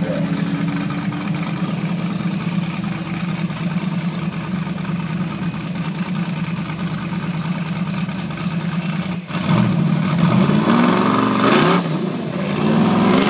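Car engines idling steadily, then one is revved up and down, louder, through the last few seconds.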